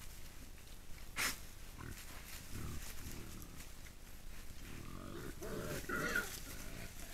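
Wild boar grunting while foraging, a short run of low grunts about two and a half seconds in and a longer, louder bout with a squeal-like edge around five to six seconds in. A single sharp click about a second in.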